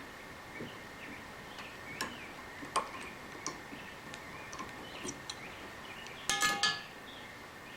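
Scattered small metallic clicks and ticks of pliers and Allen wrenches being wiggled in the flutes of a broken tap to back it out, with a brief burst of ringing metal clinks about six seconds in. A faint steady high tone runs underneath.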